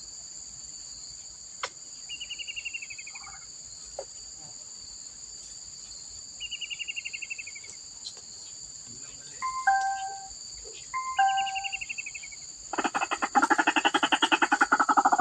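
Crickets chirring steadily while a bird gives a falling trill three times, about four seconds apart, then two short phrases of stepped falling notes. About 13 seconds in, a loud, rapid pulsing call with many overtones starts and runs on: white-breasted waterhens calling.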